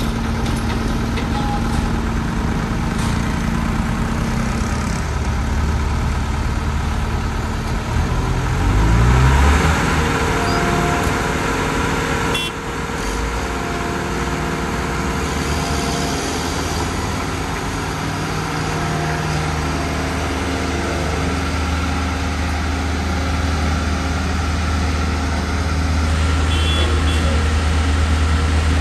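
Heavy diesel engine of a road roller running steadily; about a third of the way in its speed climbs, then it holds at the higher speed.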